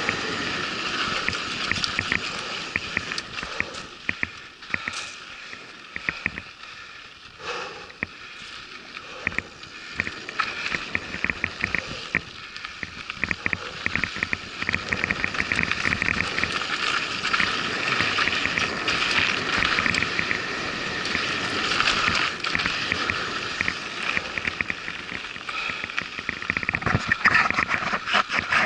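Mountain bike rolling fast over a dry dirt trail: a steady rush of tyre and wind noise with frequent rattling clicks from the bike over the rough ground. It turns quieter for a few seconds in the first third.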